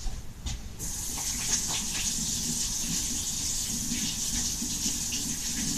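Water tap running in a steady stream, turned on about a second in.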